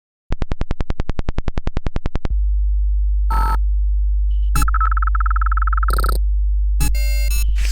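Synthesized electronic sound effects: a rapid pulsing buzz of about ten pulses a second for two seconds, then a steady deep electronic drone with short beeping tones and brief bursts over it.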